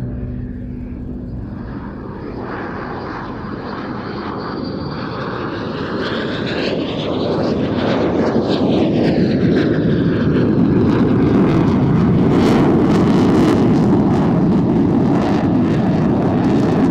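Eurofighter EF2000 jet fighter's twin EJ200 turbofans growing louder as it flies toward the crowd, with sweeping whooshing tones near the middle. It then settles into a loud roar with a crackle through the last several seconds.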